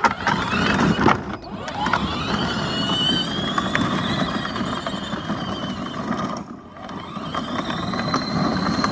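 Child's ride-on side-by-side driving, its electric drive motors and gearbox whining over the rumble of the tyres. It stops briefly about six and a half seconds in, then drives off again.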